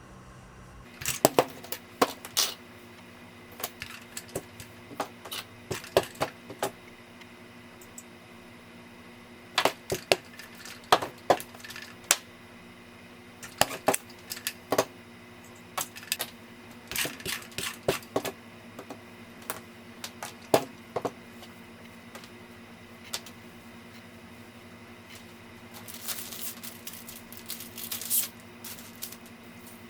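Irregular bursts of sharp clicks and clacks, with a faint steady hum underneath. Near the end comes a short stretch of denser rustling.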